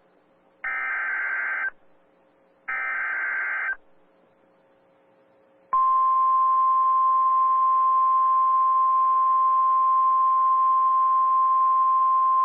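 The last two bursts of an Emergency Alert System SAME header, a digital data tone about a second each and a second apart. About two seconds later the steady NOAA Weather Radio 1050 Hz warning alarm tone starts and holds, over a faint hiss. Together they announce a severe thunderstorm warning.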